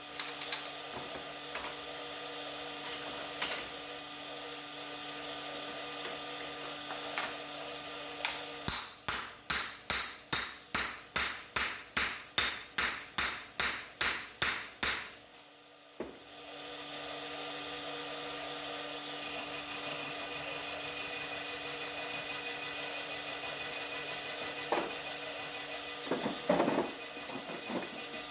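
Rhythmic back-and-forth strokes of a hand tool on a metal pulley, about three a second for some seven seconds, between stretches of a steady machine hum. A few knocks near the end.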